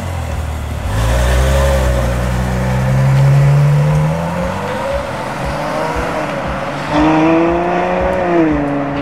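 Ferrari F12's V12 engine accelerating hard away, its pitch climbing steadily over a few seconds, then a sudden louder burst of revs about seven seconds in that falls away near the end.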